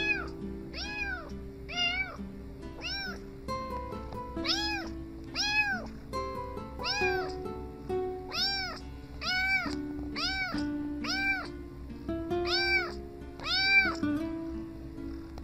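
A young tabby kitten meowing over and over, about twenty short meows that each rise and fall in pitch, one to two a second. Background music of steady held notes runs underneath.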